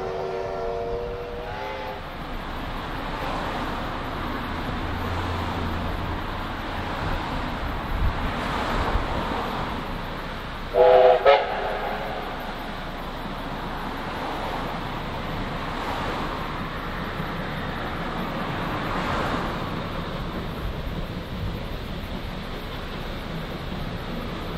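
Steam train running with a steady rumble, the whistle of NZR Ab-class steam locomotive Ab608 sounding several tones at once. One whistle ends about two seconds in, and a short double blast comes about eleven seconds in.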